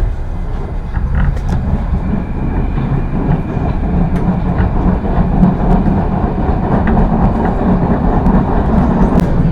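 Moscow Metro train running between stations, heard from inside the carriage: a steady rumble of wheels on rails with occasional sharp clicks, growing slightly louder after the first second.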